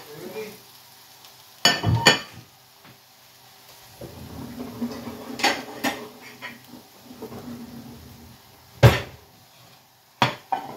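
Kitchen cookware clatter: a spatula and a ceramic plate knocking against a non-stick frying pan, about half a dozen sharp clacks, some in quick pairs.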